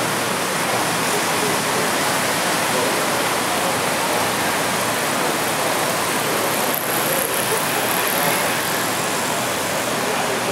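Steady, even hiss of background noise, with a model diesel switcher locomotive and its freight cars rolling past on the track.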